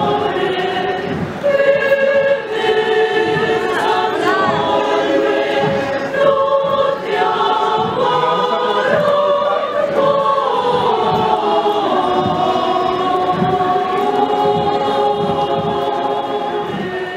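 A women's choir singing a cappella, holding long sung notes in several voices at once.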